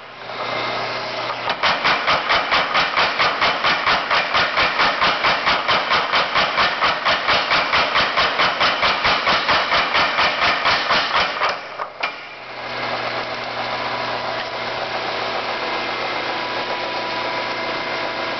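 50 lb Little Giant mechanical power hammer striking red-hot 2-inch round stock in a fast, even run of about four blows a second, drawing it out. About twelve seconds in the blows stop and only the hammer's motor keeps running steadily.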